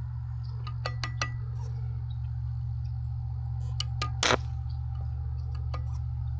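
Scattered sharp metallic clinks and taps of steel pieces being handled, one with a brief ring and one a slightly longer scrape-like burst, over a steady low hum.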